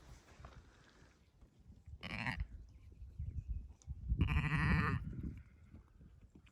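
Sheep bleating twice: a short bleat about two seconds in, then a longer, louder bleat about four seconds in.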